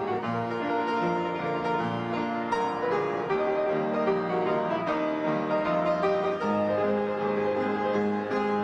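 Solo piano music played over the footage, a flowing melody with chords.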